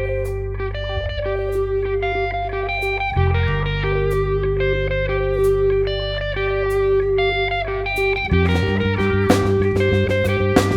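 Background music: a guitar instrumental of picked melody notes over held bass notes, with a drum beat coming in near the end.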